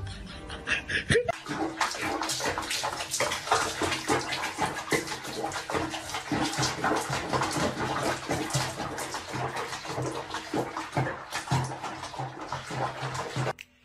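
Bathwater splashing and sloshing around a cat sitting in a bubble bath in a tub. The sound starts about a second in, after a cut, and carries on as a busy, irregular splashing.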